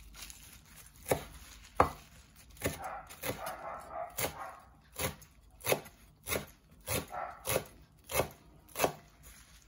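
Steel cleaver chopping fresh mint leaves on a wooden cutting board: about a dozen knocks of the blade on the wood, unevenly spaced, roughly one or two a second.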